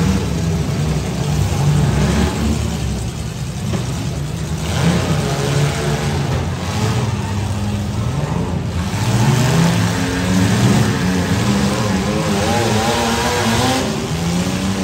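Several compact demolition-derby cars' engines running and revving at once on a dirt arena, their pitch rising and falling as the drivers accelerate and back off.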